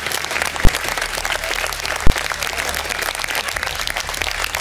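Studio audience applauding, with two short, low thumps about a second and a half apart standing out above the clapping.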